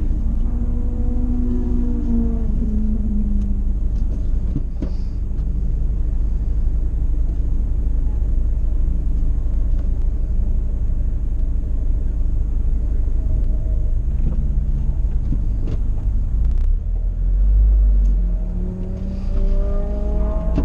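Vauxhall VX220 Turbo's turbocharged four-cylinder engine idling, heard from inside the cabin: a steady low rumble that briefly swells louder about seventeen seconds in.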